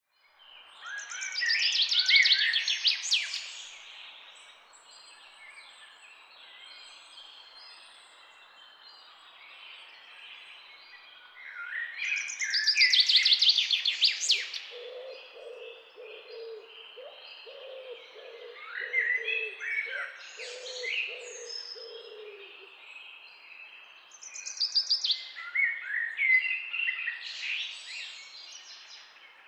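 Jungle birds singing: loud bursts of quick, high chirping trills recur about every six to twelve seconds. In the middle a lower note repeats in a run of about two a second for several seconds.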